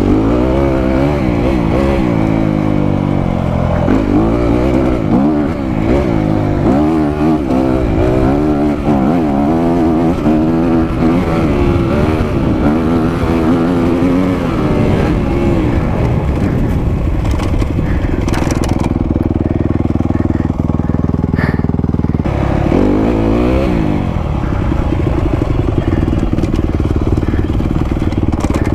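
Honda CRF250R dirt bike's single-cylinder four-stroke engine ridden hard, heard from on the bike, its pitch climbing and dropping again and again as it revs out and shifts through the gears. A little past the middle it holds steadier, then revs up again.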